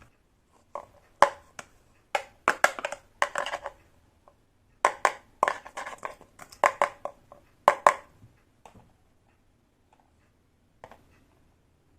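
Tiny plastic toy kitchen pieces and their packaging being handled, giving irregular sharp clicks, taps and crinkles in clusters, mostly from about one to eight seconds in.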